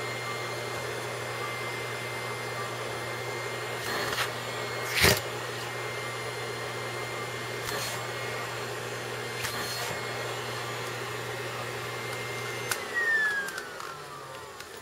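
Vacuum cleaner running steadily with a high whine, with a sharp knock about five seconds in. Near the end it is switched off and the whine falls as the motor spins down.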